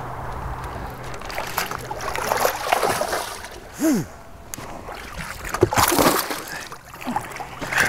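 A hooked bass splashing and thrashing at the surface beside a bass boat as it is played to the boat and landed, in irregular bursts about two and six seconds in. A low steady hum runs through the first second.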